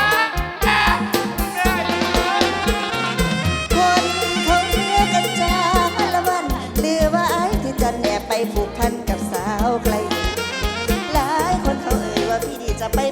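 Live band music, an instrumental passage between sung verses, with a steady drum beat under a wavering melody line.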